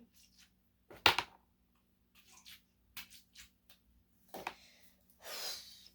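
Fidget toys being handled and set down: one sharp knock about a second in, a few softer clicks, and a short rustle near the end.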